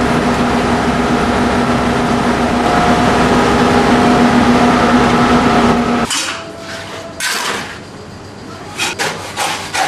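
Concrete mixer running loudly, a steady hum under dense noise. About six seconds in it cuts off abruptly to a quieter stretch with a few sharp knocks and clatters.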